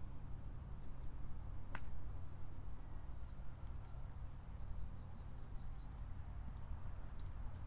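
Outdoor ambience: a steady low rumble like wind, one sharp click about two seconds in, and a quick run of high chirps around the middle.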